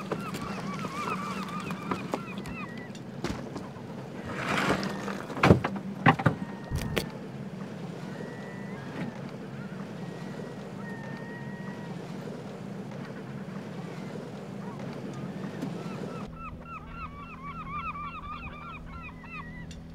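Steady low hum of a boat engine, with birds calling in quick repeated notes at the start and again near the end. A few seconds in there is a short run of loud knocks and rustling.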